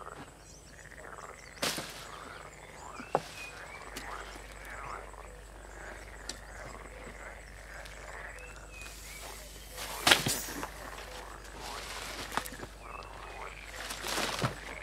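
Frogs croaking in a chorus of many short calls, with a few sharp knocks and rustles in between, the loudest about ten seconds in.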